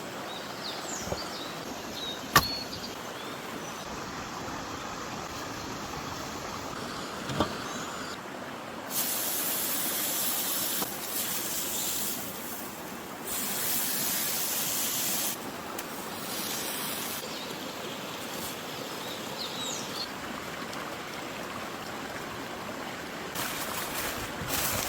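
Beef sizzling over hot charcoal against a steady rush of river water. Several spells of loud hissing last a few seconds each, and two sharp pops come from the fire.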